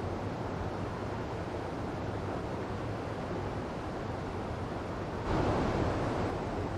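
Waterfall water running with a steady rushing hiss, suddenly growing louder for about a second and a half near the end.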